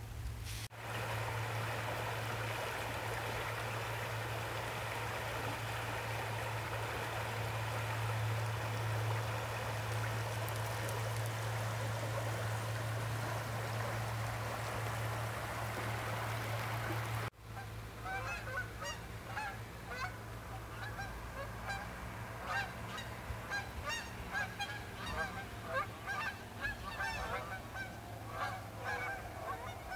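A shallow river flowing, a steady rush of rippling water, which cuts off suddenly about 17 seconds in. Then a flock of large birds flying over in a V formation, calling over and over in short calls.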